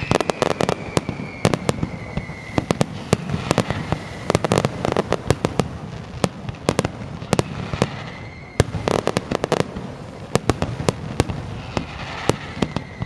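Aerial fireworks bursting overhead: a steady run of sharp bangs, with dense clusters of rapid crackling about every four seconds. A high whistle, dipping slightly in pitch, sounds now and then.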